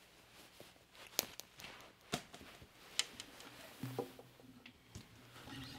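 Quiet handling noise in a small room: a few sharp clicks and knocks about a second apart over faint rustling, as someone moves about and settles in with a guitar. A faint low hum comes in during the second half.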